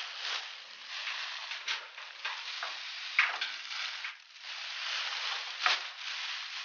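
Plastic-wrapped glass wool insulation batt rustling and crinkling as it is pushed up between ceiling joists, with sharp crackles of the film every second or so; the loudest come about three seconds in and near the end.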